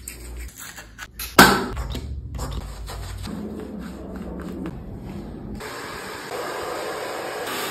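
Close-up grooming sounds on a wet border collie puppy: a toothbrush scrubbing its face and a towel rubbing its coat, with a sharp knock about a second and a half in. A steady hiss takes over in the last couple of seconds.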